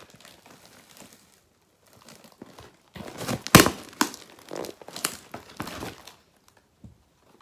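A cardboard parcel being opened: faint rustling at first, then from about three seconds in a run of louder crinkling and tearing as the plastic wrapping and cardboard flaps are pulled open, loudest about half a second into that run.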